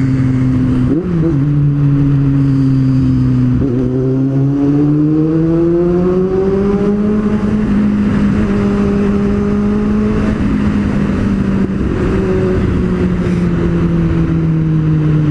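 Kawasaki Z750's inline-four engine through a Two Brothers aftermarket exhaust, heard from the bike while riding. It runs at a steady note with a quick jump in pitch about a second in, climbs in revs from about four seconds in, holds, then eases back slowly near the end.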